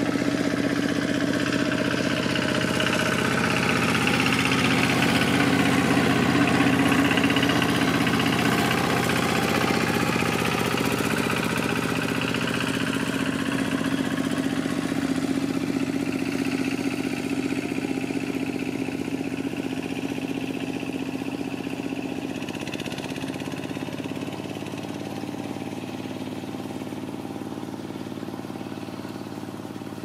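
A motor engine running with a steady hum, slowly growing quieter over the second half.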